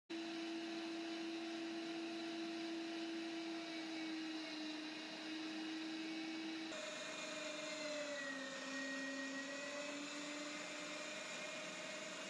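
Naniwa Super Grinder electric meat grinder running steadily, its motor humming as it grinds onion. The motor's pitch dips briefly about two-thirds of the way through, then comes back up.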